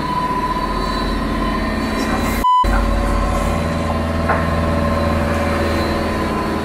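Yacht's inboard engine running steadily under load through wind and breaking-sea noise, with a thin steady high tone over it. About two and a half seconds in, a brief censor bleep cuts everything out.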